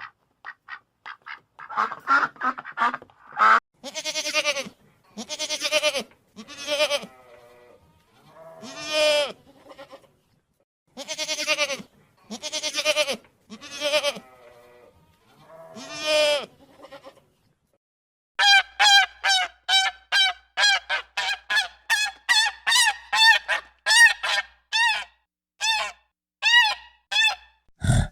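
Domestic geese honking: a string of long, drawn-out honks, then after a short pause a faster run of short, regular honks.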